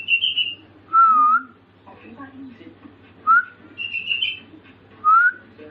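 Caged sooty-headed bulbul (kutilang) singing: short clear whistled notes that glide upward, about every two seconds, alternating with higher warbled phrases. It is a young bird practising imitated filler (isian) sounds.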